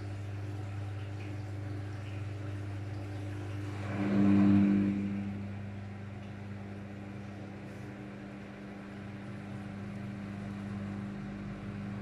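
Daewoo DWD-FT1013 front-loading washing machine running in test mode, a steady mechanical hum. About four seconds in it surges louder for about a second, then settles into a steady hum of a different pitch.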